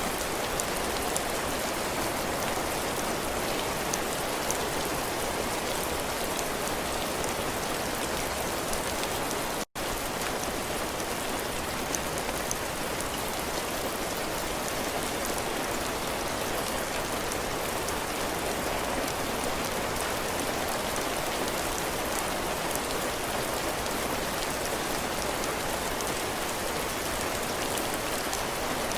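Heavy rain falling steadily, drops pattering on a roof and the ground, with scattered sharper drop ticks. The sound cuts out for an instant about ten seconds in.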